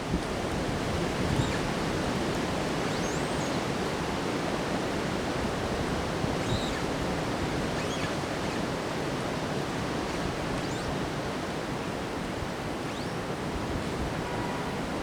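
Steady rushing of strong wind during a snowy windstorm, an even hiss without gusts buffeting the microphone. A few faint, short high chirps sound now and then over it.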